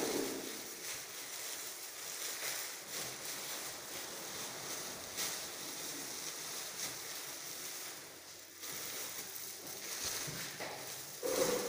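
Thin clear plastic bags rustling and crinkling as stacks of cakes are slipped into them by gloved hands, with a short lull about eight seconds in.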